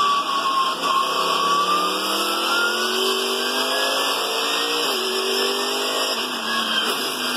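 Racing car engine revving, its pitch rising and falling in long slow glides.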